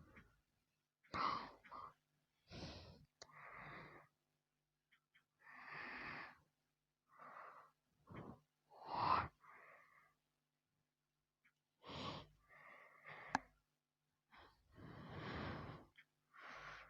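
A person breathing in short, noisy breaths, about a dozen irregular breaths with silent pauses between them.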